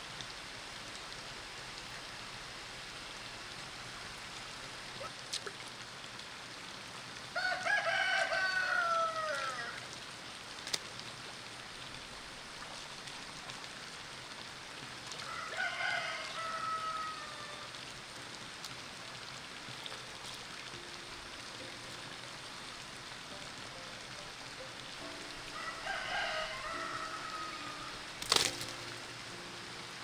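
A rooster crowing three times, each crow about two seconds long and dropping in pitch at the end, over a steady background hiss. A single sharp click comes near the end.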